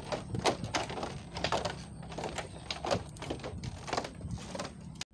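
Footsteps knocking on the planks of a wooden bridge, a few uneven steps a second. The sound cuts off suddenly at the end.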